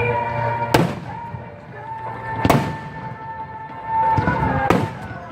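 Aerial fireworks bursting: three sharp bangs with echoing tails, about a second in, at two and a half seconds and near the end, over music with long held notes.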